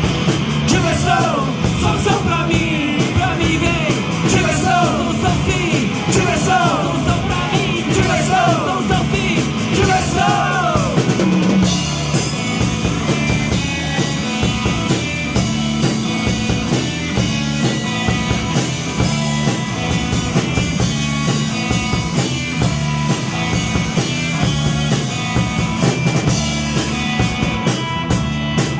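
Live rock band playing with a drum kit, a singer's voice carrying the melody for the first eleven seconds or so, then an instrumental passage.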